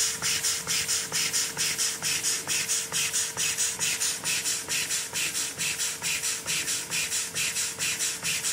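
Model walking beam steam engine running steadily, its exhaust puffing in an even rhythm of about four puffs a second over a steady faint tone.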